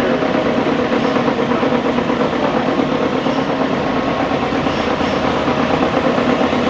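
Lodge & Shipley No. 20 engine lathe running under power, its drive motor and headstock gearing giving a steady mechanical hum with a few steady tones in it.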